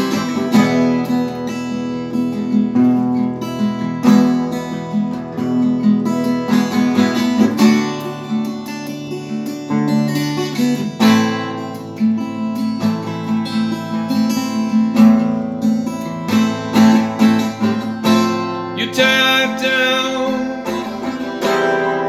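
Acoustic guitar strummed in a steady, rhythmic chord pattern.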